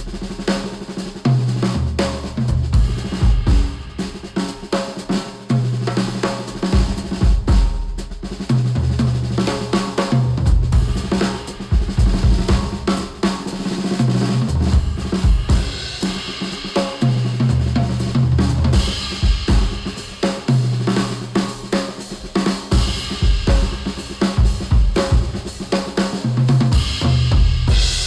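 Music with a drum kit (snare, bass drum, hi-hat and cymbals) over a repeating heavy bass line, played back through HIFIMAN Sundara planar-magnetic headphones and picked up by microphones at the earcups.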